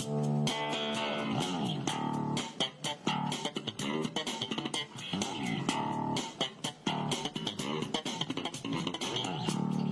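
Background music: guitar-led instrumental with bass guitar and many plucked notes, some sliding in pitch.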